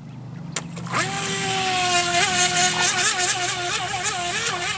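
A radio-controlled model boat's motor spinning up about a second in to a steady high whine, then wavering up and down in pitch as it runs on the water. A single sharp click comes just before it starts.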